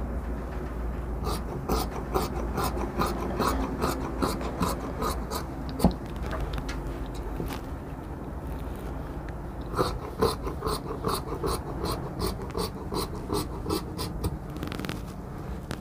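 Large tailor's scissors snipping through shirt cloth along a chalk line, about three snips a second, in two runs with a pause between them. A steady low hum sits underneath.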